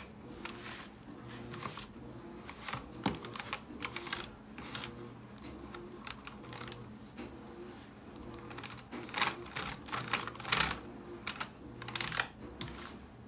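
Keys of a computer keyboard clicking and rattling as a tissue is wiped across them, in scattered clicks with the loudest cluster a little after the middle.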